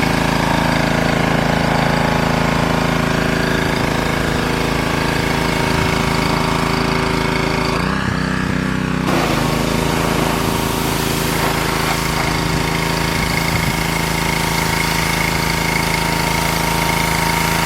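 Pressure washer running steadily during the rinse, a constant motor drone with a brief shift in tone about eight seconds in.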